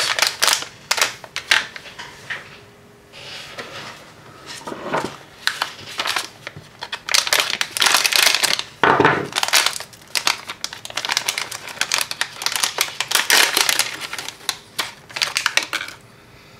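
Crinkling and rustling of a plastic anti-static bag as it is handled and cut open with small cutters, in irregular bursts that stop shortly before the end.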